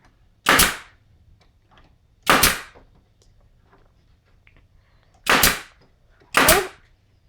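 Pneumatic staple gun firing four times, a sharp shot every second or few, driving staples into the bottom bars of wooden beehive frames.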